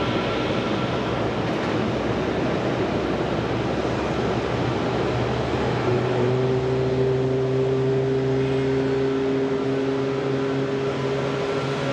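Jet airliner on final approach: a Boeing 737-800's CFM56-7B engines giving a steady broad roar, with a steady multi-tone hum joining in about six seconds in.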